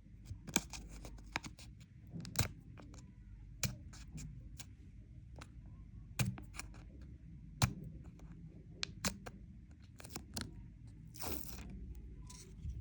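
Candy wrapper being handled and opened: a string of sharp crinkles and clicks, with one short tear about eleven seconds in.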